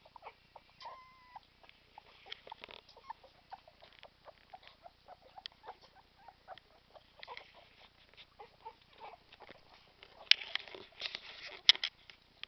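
English bull terrier puppies eating wet kibble: a continual run of small wet smacking and clicking sounds. There is a brief high squeak about a second in, and a louder cluster of sharp noisy sounds near the end.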